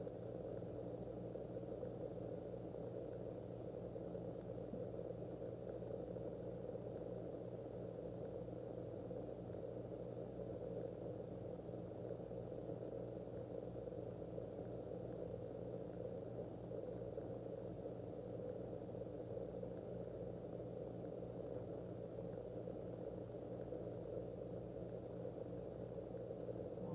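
A steady, unchanging low droning hum.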